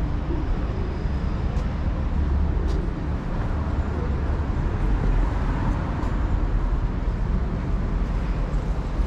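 City road traffic: a steady low rumble of cars and other vehicles, swelling a little as vehicles go past.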